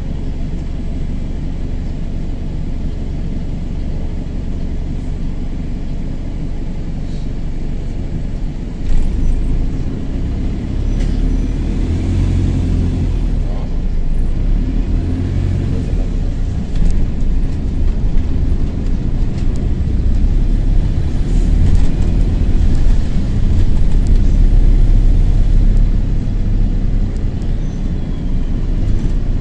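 London bus engine with a burst turbo exhaust, heard from inside the bus: a steady low drone, growing louder from about nine seconds in as the bus pulls away and rises and falls in revs.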